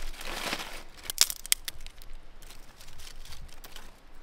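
Dry twigs being handled and stacked into a kindling pile: rustling and a few sharp snaps and clicks of small sticks, the loudest snap about a second in.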